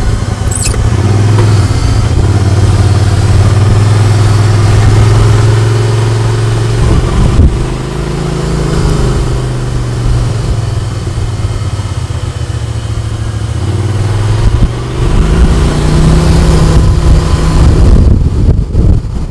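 Off-road side-by-side's engine running while driving on a dirt road, with a steady engine note. It eases off partway through, then picks up again with a rising pitch near the end as the machine speeds up.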